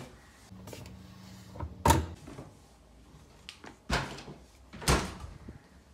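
Kitchen doors being handled, the refrigerator among them: three sharp knocks and bumps, about two, four and five seconds in, the first the loudest, with a brief low hum just before it.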